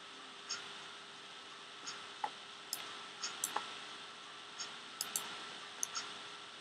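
Faint, irregular clicking of a computer mouse, about a dozen short sharp clicks, over a steady hiss and a faint hum.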